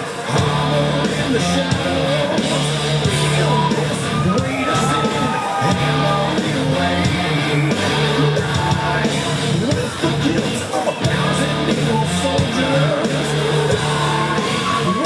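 Wrestler's entrance theme: loud heavy rock music with sung vocals and electric guitar.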